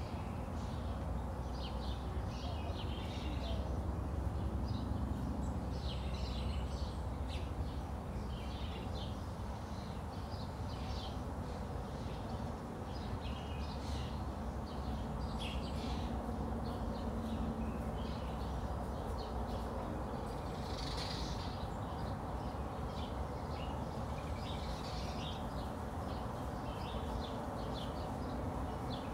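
Outdoor morning ambience: many short bird calls and chirps over a steady low rumble.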